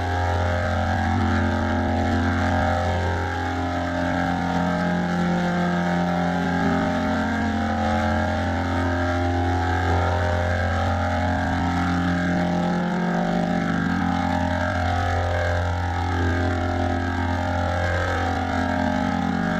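A steady low droning sound effect: a constant deep hum with slowly sweeping, shifting overtones above it.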